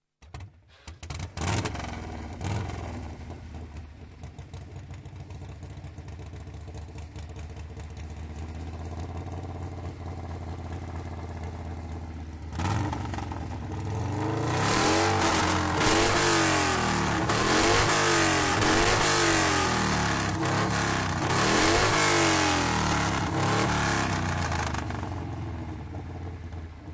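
1979 Harley-Davidson Shovelhead 1200 cc V-twin running at a steady idle, then from about halfway revved up and down repeatedly, the revs rising and falling several times before dropping back near the end.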